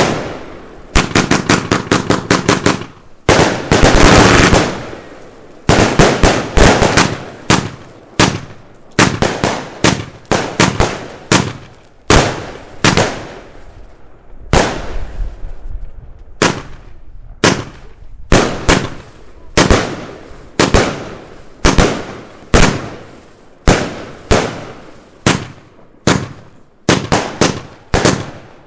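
Consumer firework batteries (F2/F3 cakes) firing: a dense rapid volley of bangs in the first few seconds, then a steady series of sharp shots and breaks about once or twice a second, some in quick pairs.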